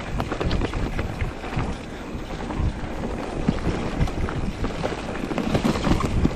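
Mountain bike riding down a dirt forest trail: wind rushing over the microphone and tyres rolling on dirt, with frequent short rattles and knocks from the bike over bumps.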